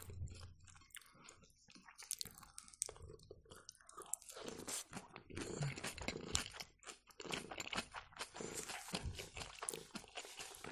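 Close-miked chewing and crunching of a mouthful of rice pancake wrapped in lettuce with trout and pear. Sparse at first, then dense crunching from about four seconds in.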